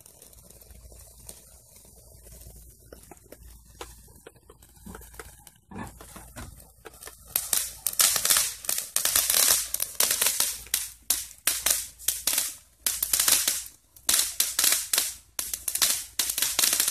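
Ground fountain firework burning, faint at first. About seven seconds in, a loud, rapid crackling of many small pops starts and runs on with short breaks.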